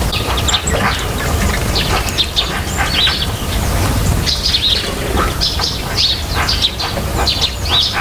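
Small songbirds chirping: many short, high calls in quick succession over a steady low rumble.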